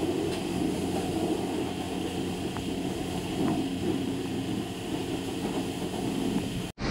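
Wet microfiber wash cloth rubbing and swishing over soap-foamed car paint, over a steady low mechanical hum. The sound cuts out for an instant near the end.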